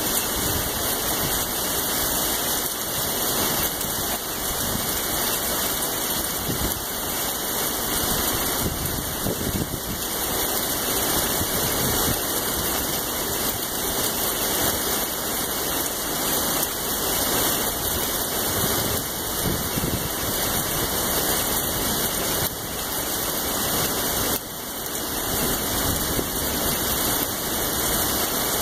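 Heavy rain pouring steadily in a severe thunderstorm, an even rushing hiss with small swells and no break.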